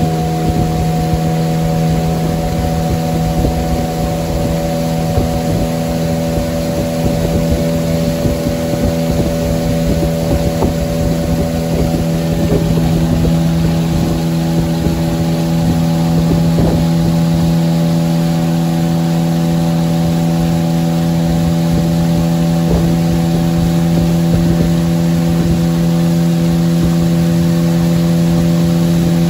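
A small boat's engine running at a steady speed, one constant drone with no change in pitch, over the rush of water along the hull and wind rumble on the microphone.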